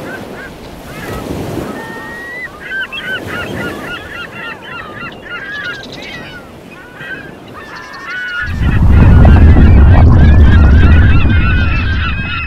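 A flock of birds calling: many short, overlapping calls over a low rushing noise. About eight and a half seconds in, a loud low rumble swells up and holds for several seconds before easing off.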